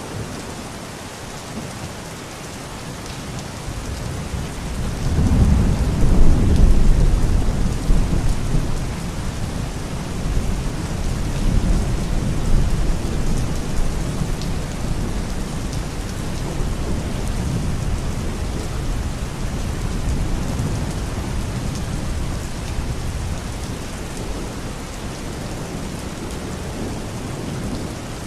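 Steady rain falling, with a long roll of thunder that builds about four seconds in, peaks a few seconds later, and slowly rumbles away.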